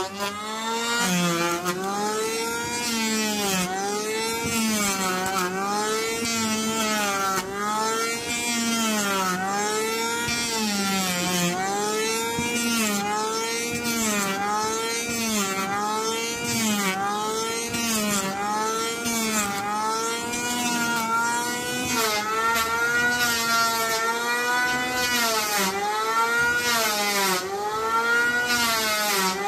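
A power tool's motor running steadily, its pitch swinging up and down in a regular cycle about every second and a quarter, as the load on it comes and goes with repeated strokes.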